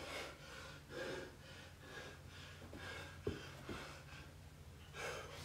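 A man breathing hard from the exertion of bodyweight exercise: faint, quick breaths about once a second, with two short taps near the middle.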